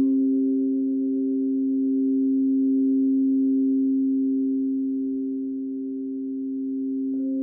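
Quartz crystal singing bowls, tuned to 528 Hz, ringing together in long sustained tones: a low and a middle note held steady with a slow swell and ebb in loudness, and a higher note freshly sounding near the end.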